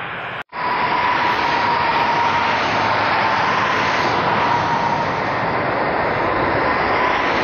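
Boeing 747-400's four jet engines on approach to land, a steady roar with a high whine held over it. The sound cuts out for a moment about half a second in, then comes back at full strength.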